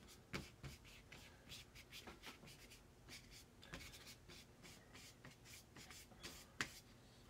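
Faint, irregular strokes of a thin paintbrush dabbing and rubbing watercolor onto paper, with a slightly sharper tap about half a second in and another near the end.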